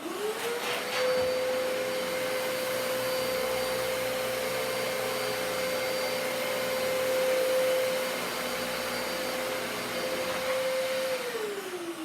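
Dyson DC-33 upright bagless vacuum cleaner switched on, its motor whine rising quickly to a steady high pitch over a rush of air. Near the end it is switched off and the whine falls away as the motor spins down.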